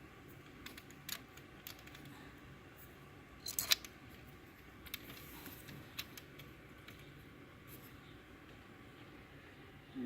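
Light metallic clicks and taps of small Allen bolts being handled and fitted into the aftermarket blow-off valve, scattered and irregular, with a louder pair of clicks about three and a half seconds in.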